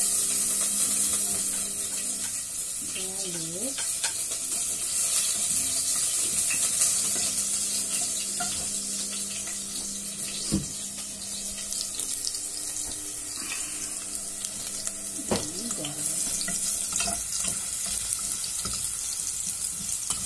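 Chopped garlic dropped into hot cooking oil in a stainless steel pot: the sizzle starts suddenly and goes on steadily as the garlic is stirred, with a single knock about halfway through.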